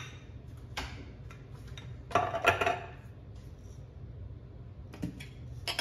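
Kitchen clatter: a few light knocks and a ringing clink of a hard kitchen item being handled or set down about two seconds in, over a steady low hum.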